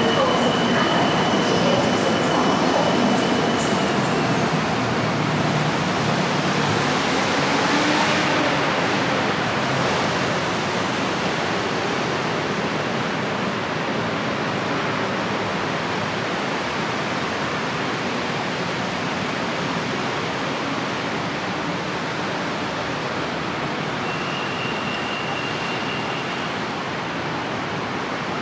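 BTS Skytrain electric train running through an elevated station, a steady rushing rail noise that slowly fades. A faint high whine is heard at the start and again briefly near the end.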